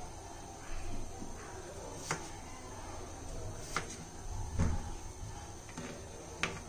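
Kitchen knife cutting potatoes into cubes on a cutting board: about four sharp, irregularly spaced knocks of the blade striking the board.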